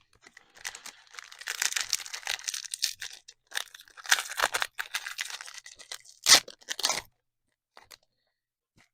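A foil trading-card pack being torn open and its wrapper crinkled: a crackling rustle lasting about six seconds, with one sharp, louder crackle near the end.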